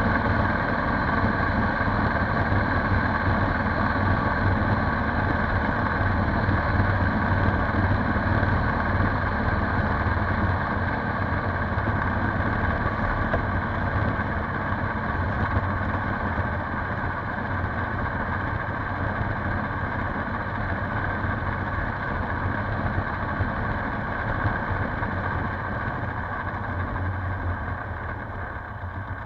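Polaris Sportsman 570 ATV's single-cylinder engine running steadily, slowly growing quieter toward the end.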